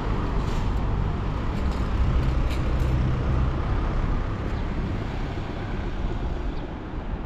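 Outdoor street ambience: a steady low rumble of road traffic.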